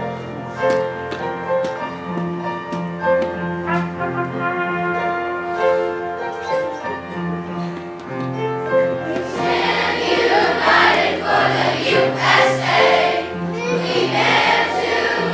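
Instrumental introduction of a song, steady pitched notes, then a children's choir comes in singing about nine seconds in.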